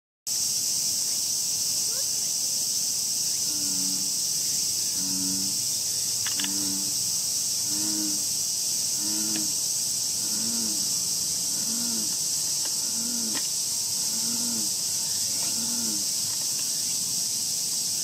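Insects buzzing in a steady high-pitched drone, with a deep two-toned call repeated about a dozen times, a little over once a second, from about three seconds in until near the end.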